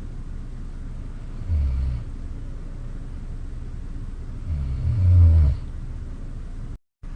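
A sleeping person snoring: two low snores about three seconds apart, the second longer and louder, over a steady low background hum.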